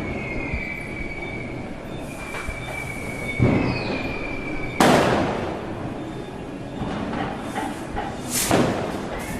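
Firecrackers going off: three loud bangs, about three and a half, five and eight and a half seconds in, each trailing off, with smaller pops between them. A steady high whistle runs through the first half and stops at the second bang.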